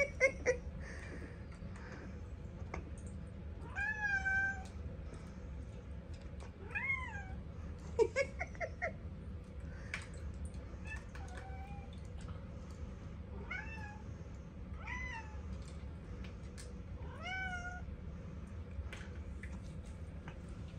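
Domestic cats meowing repeatedly as they beg for food: drawn-out meows every couple of seconds, with a quick run of short meows about eight seconds in.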